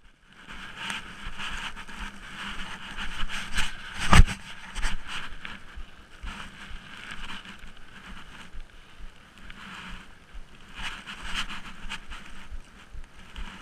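Wind gusting over the microphone, rising and falling, with one sharp knock about four seconds in.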